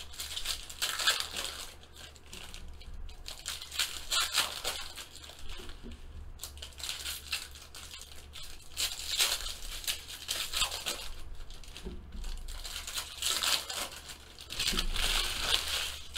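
Crinkly silver plastic wrapper of a sealed trading-card pack being torn open and crumpled by hand, crackling in irregular bursts.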